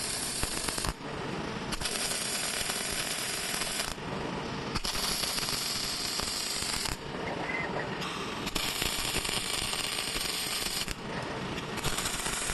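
Robotic arc welding: the welding arc crackles in runs of about two seconds, stopping for about a second between welds, over a steady clatter from the production line.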